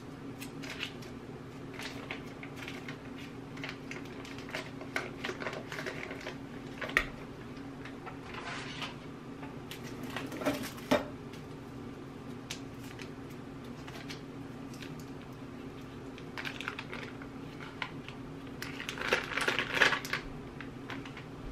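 Butter sticks being unwrapped and handled: paper wrappers and a plastic bag rustling and crinkling, with scattered light clicks and a few sharper knocks against glass bowls. A steady low hum runs underneath.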